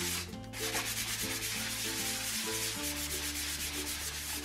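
Hand sanding with a folded sheet of sandpaper rubbed back and forth over a solid pine IKEA Rast drawer front: a steady scratchy rasping. It is smoothing down dried wood filler in the old drawer-pull holes.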